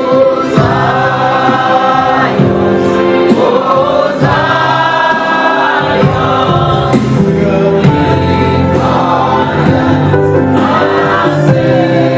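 A choir singing a gospel anthem, with instrumental backing and a steady beat.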